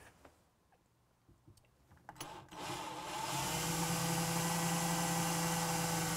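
Cordless drill boring a pilot hole for hinge-plate screws into a cupboard side panel. After a couple of seconds of near silence and a few light clicks, the motor spins up and runs at a steady pitch.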